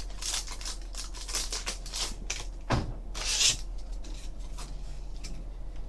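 A trading card pack being opened by hand and the cards handled: rustling of the wrapper and small clicks of card stock, with a soft knock a little under three seconds in and a brief tearing rustle just after.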